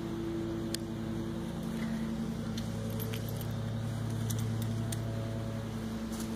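A wooden buck saw being handled while it is taken out of its sheath: a few light clicks and rattles, over a steady low machine hum.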